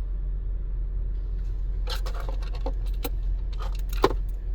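A handful of light clicks and clacks, as of small metal pistol parts being handled, bunched in the second half, with the loudest one near the end, over a steady low rumble.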